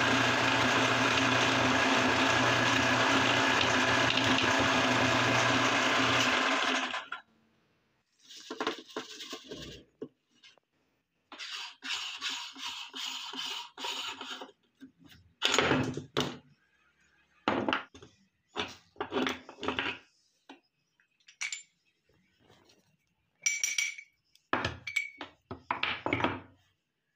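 Electric meat grinder running steadily as it grinds hard mango candy, its motor cutting off suddenly about seven seconds in. Then comes a series of separate metal clinks, knocks and scrapes as the aluminium grinder head is taken apart by hand and the plate and auger are pulled out.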